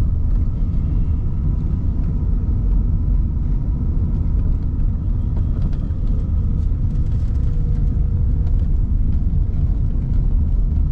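A car driving: steady low rumble of road and engine noise.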